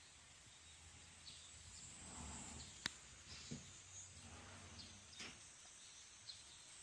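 Near silence: faint room tone with a few brief, faint high chirps and one sharp click about three seconds in.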